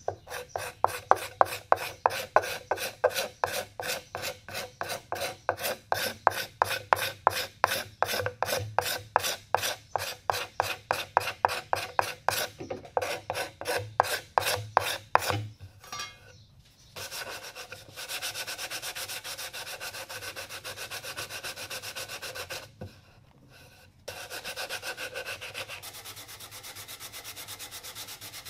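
Hand file stroking across the walnut burl handle of a wooden paddle, about three to four strokes a second for some fifteen seconds. After a short pause it turns to faster, steadier rubbing on the wood, which stops briefly and then resumes.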